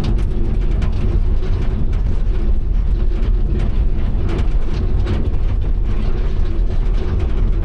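Excavator running steadily with a low engine rumble, with rapid metallic clicking and clanking through it.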